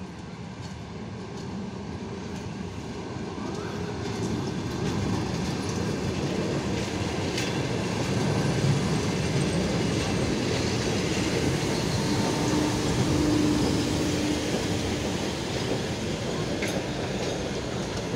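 ER9M electric multiple unit arriving and rolling past close by, its wheels clattering over the rail joints. The rumble grows louder over the first several seconds and then holds steady as the cars go by.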